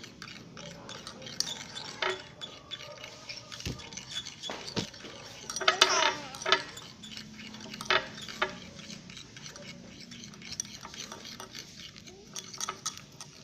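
A stirrer clinking and scraping irregularly against a bowl as slime is stirred, with repeated sharp taps; the glue mixture is thickening.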